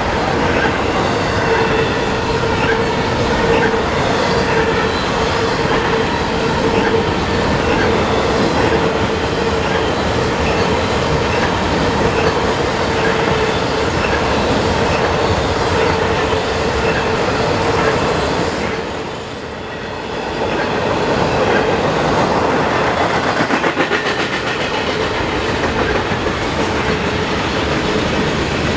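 Freight cars of a long mixed train rolling past close by, wheels clicking over the rail joints with a steady rumble. A steady ringing tone, typical of a squealing wheel, runs under the rolling noise and fades near the end. The noise dips briefly about two-thirds through.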